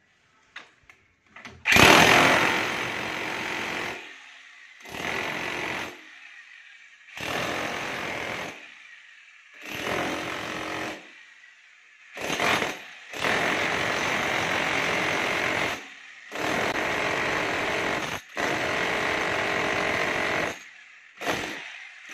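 Electric demolition breaker hammer with a chisel bit hammering into a brick wall, run in repeated bursts of one to three seconds with short pauses between them. Starting about two seconds in.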